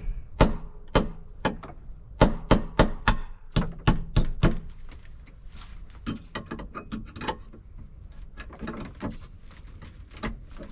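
A quick run of sharp knocks and clicks from hands working hardware, about a dozen in the first four and a half seconds, then lighter scattered clicks.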